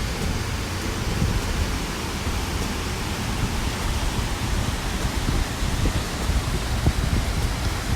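A steady, loud rushing noise spread across the whole range, with uneven rumbling in the lows.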